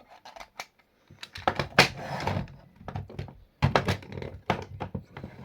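Parts of a hand-assembled blaster being handled and fitted together: a run of short clicks and knocks, with two busier clusters of rattling contact.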